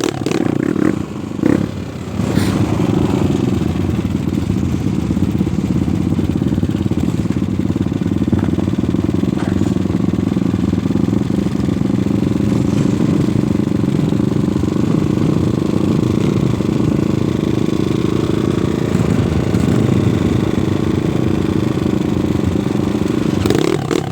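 Trail motorcycle engine running steadily, an even low drone without big revs.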